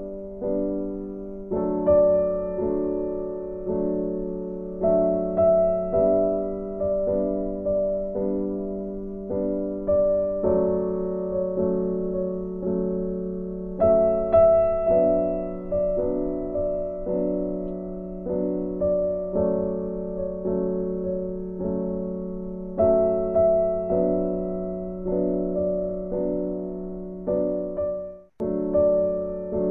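Gentle solo piano music as background waiting music: soft notes struck about twice a second, each fading away. It breaks off for a moment near the end and starts again.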